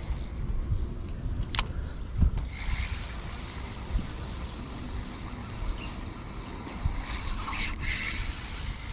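Creek water running under a low rumble. There is a sharp click about one and a half seconds in, and near the end a splash from a smallmouth bass striking the topwater lure on the surface.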